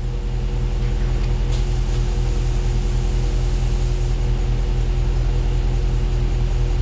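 Low-pitched bass test tone from the amplifier dyno's test track, playing through the car audio system and growing steadily louder as the amplifier is driven.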